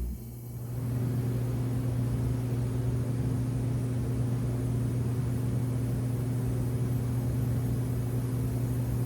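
A 2012 Kelvinator (Nordyne) central air-conditioning system, switched on in cooling mode, running with a steady low electric hum over an even rush. The sound comes in suddenly, rises over the first second and then holds level.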